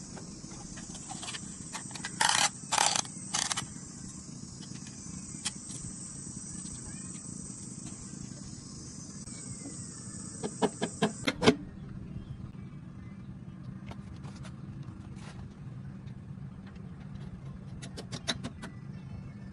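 Insects chirring in a steady high hiss that stops about eleven seconds in, over a steady low hum. Three loud short scraping noises come a few seconds in, then a quick run of five or six sharp taps, and a few fainter clicks near the end.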